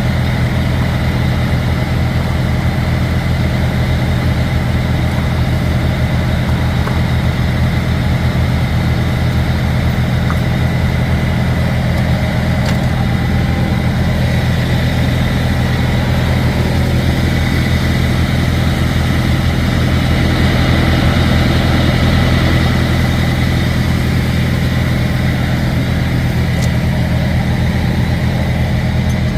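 Freightliner Cascadia semi truck's diesel engine idling steadily, a deep even rumble with no change in speed.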